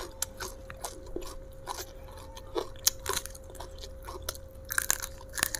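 Close-up mouth sounds of someone chewing raw young jengkol, eaten skin-on with raw vegetables: irregular crisp crunches and wet chewing, several a second, louder near the end. A faint steady hum runs underneath.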